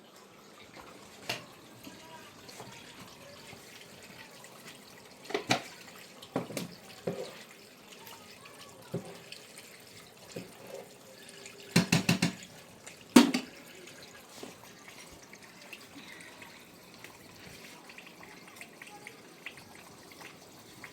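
Water running and dripping, with scattered knocks and a quick cluster of clattering knocks about twelve seconds in, the loudest one just after.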